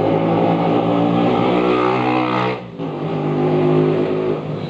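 A motor vehicle engine running steadily, with a brief dip in loudness about two and a half seconds in.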